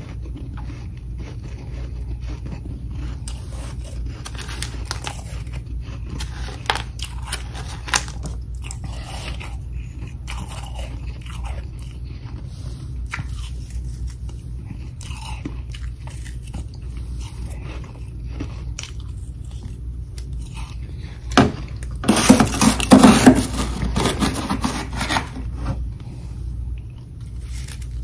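Mouthfuls of freezer frost grown from humidifier moisture, bitten and chewed with crisp crunches: scattered at first, then a loud run of dense crunching about three-quarters of the way through. A steady low hum runs underneath.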